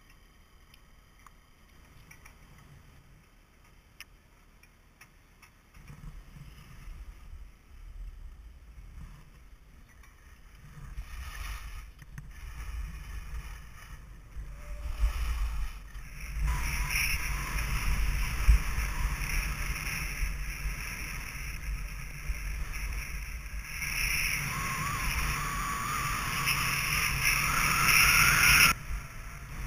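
Skis sliding and scraping over groomed snow with wind rushing across the body-worn camera's microphone, quiet at first and turning loud and steady from about halfway. The noise cuts off suddenly near the end.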